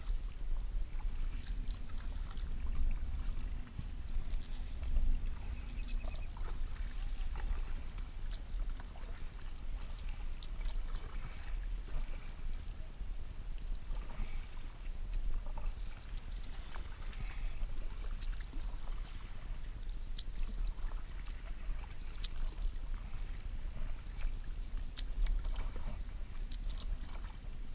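Kayak paddling: water splashing and dripping off the paddle with small irregular clicks, over a steady low rumble.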